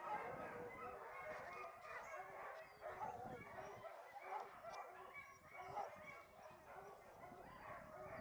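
Many sled dogs barking over one another in a continuous, overlapping chorus, fairly faint.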